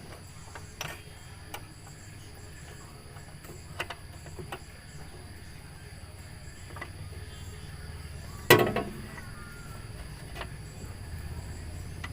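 Hand tools working on engine parts: scattered light clicks and knocks, with one loud clank and a short ringing tail about eight and a half seconds in.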